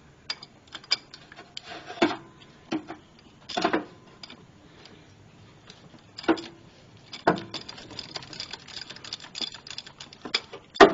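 Ratchet wrench with a 1 1/4 inch socket working an oil filter housing cap: scattered sharp metallic clicks and clanks, with a run of quick small ratchet clicks in the second half.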